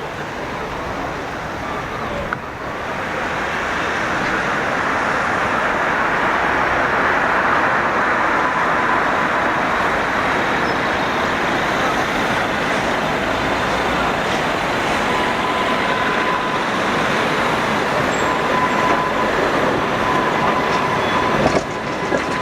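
Tatra T3 tram running on street track: a steady rumble and rush of wheels on rail that builds over the first few seconds, with a faint thin whine joining in after about fifteen seconds.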